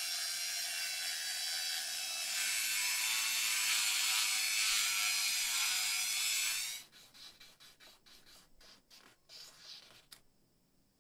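Handheld rotary tool spinning a small polishing bit loaded with paste against the metal recess of a lighter: a steady high whine that gets louder about two seconds in and cuts off abruptly near seven seconds. After it, faint rubbing as a paper cloth wipes the piece.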